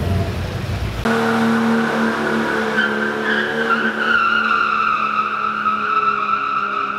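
Jeep Wrangler's tyres squealing on a wet, smooth concrete car-park floor as it spins and slides sideways. A long, steady squeal starts suddenly about a second in, over the low drone of the engine.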